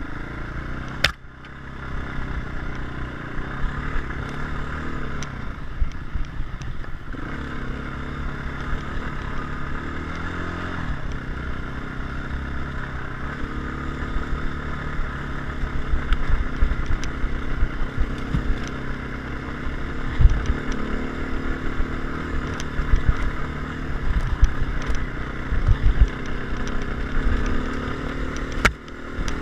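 Enduro dirt bike engine running under the rider on a trail, its note rising and falling with the throttle, with knocks and rattles from the bike bouncing over rough, rocky ground.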